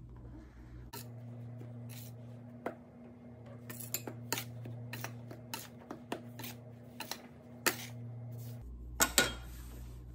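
Stainless-steel bench scraper chopping and scraping crumbly pie dough on a granite countertop: a run of irregular sharp clicks and taps, with two louder knocks near the end.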